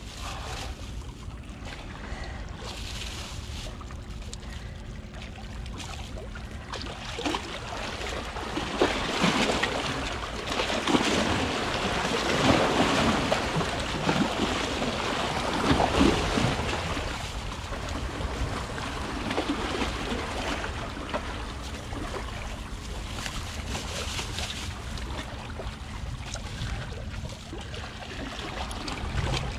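Sea waves washing against shoreline boulders, with wind on the microphone as a steady low rumble; the wash swells louder for several seconds in the middle.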